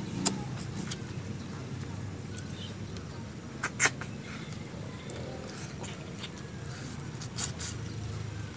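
Close-up eating sounds of a man eating fish by hand: sharp lip smacks and sucking clicks as he works the fish off the bone, one early, then a quick pair about halfway and another pair near the end.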